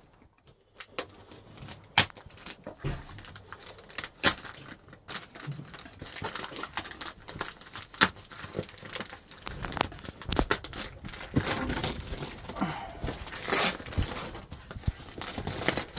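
Clear plastic wrap on a cardboard box being slit with a knife and then torn and crinkled as it is pulled off, with scattered sharp crackles. From about halfway through the crinkling gets louder and more continuous.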